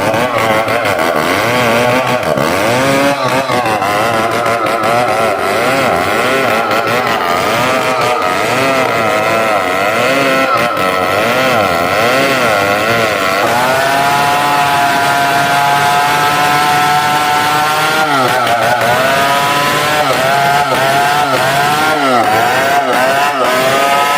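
Two-stroke chainsaw cutting into a large tree trunk, its engine pitch rising and falling quickly as the chain bites and bogs in the cut. About halfway through it settles into a steadier, higher note, then dips twice near the end.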